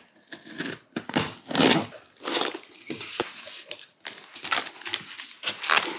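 Clear plastic stretch wrap and tape on a cardboard box being sliced and torn open, then the cardboard flaps pulled back, in a run of irregular scratchy rustles with short pauses.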